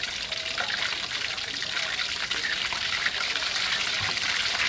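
Pieces of queenfish frying in hot oil in a steel wok: a steady sizzle with fine crackles, growing a little louder near the end.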